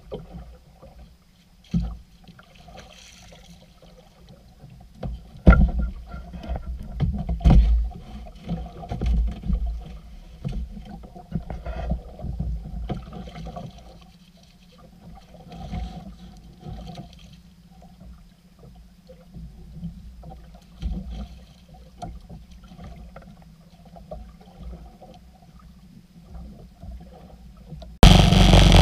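Water slapping and sloshing against the hull of a small outrigger boat lying still, broken by irregular knocks and thumps in the boat. Near the end it cuts suddenly to a loud steady rush of the boat's engine, wind and spray as it runs at speed.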